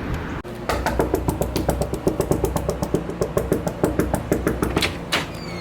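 Background music with a fast, clicky beat and short plucked notes, starting after a sudden cut about half a second in and ending on a louder hit near the end.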